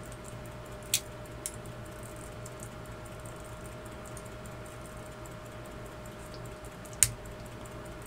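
Sharp clicks from a Waltham pocket watch's crown and stem being worked by hand: two close together about a second in, and a louder one near the end.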